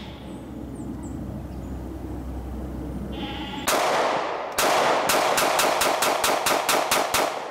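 ATI FX45 Fat Boy .45-calibre compact 1911 pistol fired fast with brass-cased ammunition: a single shot about halfway in, another a second later, then a rapid string of about four shots a second until near the end. The pistol cycles without a stoppage.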